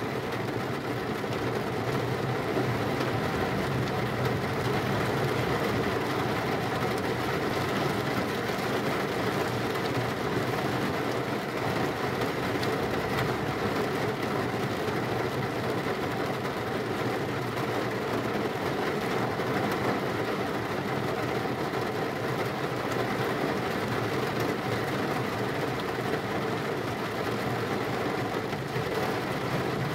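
Heavy rain falling steadily, a constant dense rushing noise with no separate claps.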